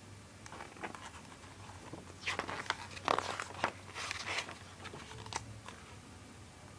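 Page of a picture book turned by hand: a run of crisp paper crackles and rustles, thickest about two to four seconds in.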